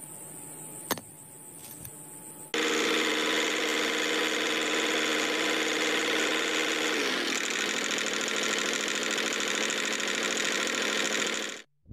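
Small electric motor of a homemade model tractor switches on suddenly about two and a half seconds in and runs with a steady whine and buzz while the tractor drives. Its pitch dips slightly partway through, and it cuts off just before the end. Before it starts there is a faint hiss and a single sharp click.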